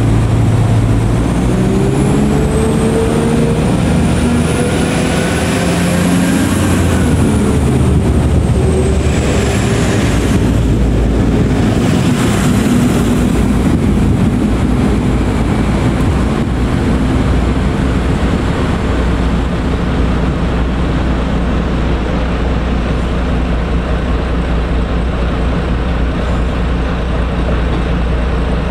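Northern Ireland Railways diesel multiple unit pulling away and accelerating past, its engine note and a high whine rising in pitch, then falling as it draws away. This gives way to a steady low diesel drone with wheel and rail noise.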